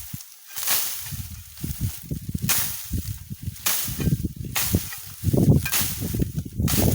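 Wind buffeting the microphone in gusts, stronger in the second half, with a hissing swish about once a second.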